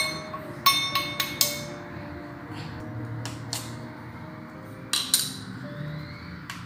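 Small steel bowl clinking against a steel pot as plain flour is tipped out of it: several ringing metallic clinks in the first second and a half, and another about five seconds in. Quiet background music with held notes underneath.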